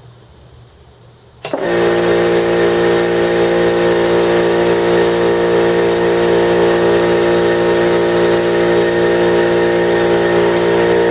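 Central Pneumatic 21-gallon cast iron vertical air compressor starting up about a second and a half in, then running steadily and loudly on its first run.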